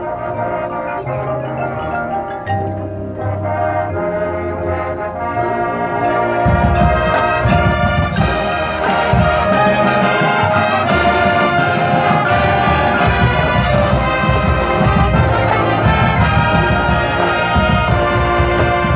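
High school marching band playing its field show: brass chords over front-ensemble marimbas and mallet percussion. About six seconds in the low end fills in and the band grows louder.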